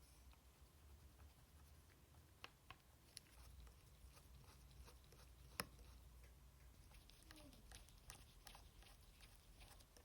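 Faint, scattered light clicks and taps from small parts being handled by hand, with one sharper click about halfway through, over a low steady hum.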